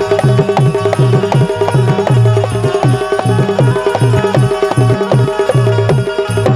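Instrumental passage of Bundeli Rai folk music: a fast, driving hand-drum rhythm over a steady held melodic note.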